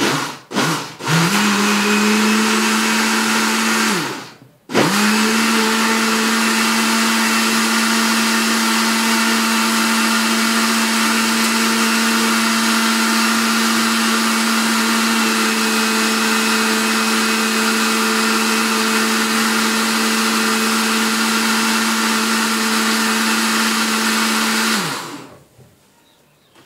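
Countertop blender mixing a cake batter of eggs, sugar, oil and margarine: a couple of quick pulses, a run of about three seconds, a short stop, then a long steady run at an even motor pitch that winds down near the end.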